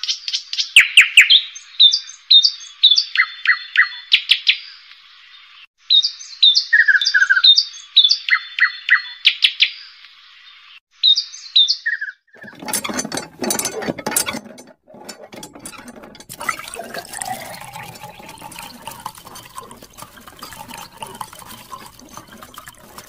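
A bird-chirp sound effect, the same few seconds of chirps and twitters looping about every six seconds, gives way about halfway through to water running from a hose onto toy trucks, splashing, with a slowly rising tone as it pours.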